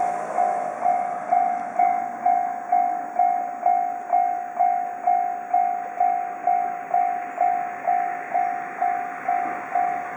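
Japanese railroad crossing warning bell ringing, an electronic clang repeating evenly about twice a second, each strike fading before the next, over a steady rushing noise.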